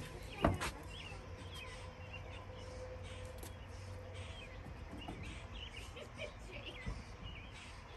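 Faint outdoor ambience with small birds chirping on and off, and a single knock or thump about half a second in.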